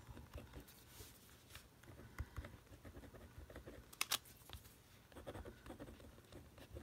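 Faint scratching of a 0.5 mm gel pen writing on a paper card, in short strokes, with one sharp click about four seconds in.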